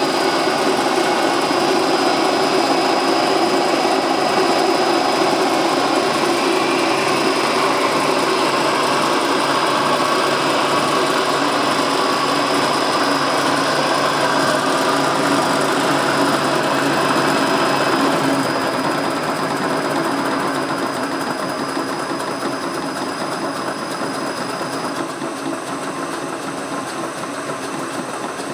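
Millport vertical milling machine running with its spindle turning, a steady mechanical whir with a rattle and squeaks from the variable-speed drive: the vari-disc pulleys on the motor are bent out of shape. A thin high whine runs through it, and the running gets quieter from about eighteen seconds in.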